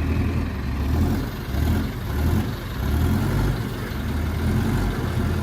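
Heavy construction machine's diesel engine running under load, its low drone swelling and easing again several times.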